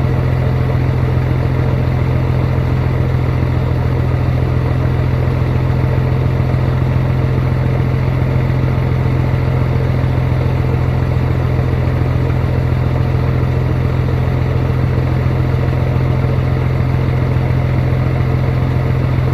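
Scania 111 truck's diesel engine idling steadily, with the strange noise of its engine-driven air compressor that the owner takes to be abnormal.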